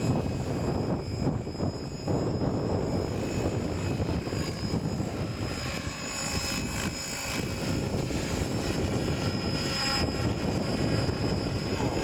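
700-size radio-controlled helicopter with an Airwolf scale body flying low, its rotor blades and power unit running steadily, with a faint high whine over the rotor noise. Strong wind buffets the microphone.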